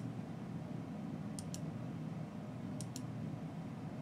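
Computer mouse button clicking twice, about a second and a half apart, each time a quick pair of sharp clicks, over a steady low hum.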